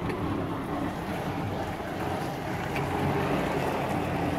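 Tractor-trailer's diesel engine running steadily inside the cab as the rig turns at low speed, a low even hum.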